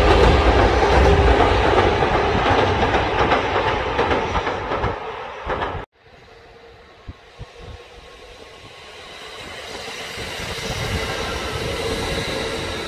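Kintetsu electric train passing loudly, its noise fading away, until it cuts off abruptly about six seconds in. A train is then heard approaching, growing steadily louder with a whine.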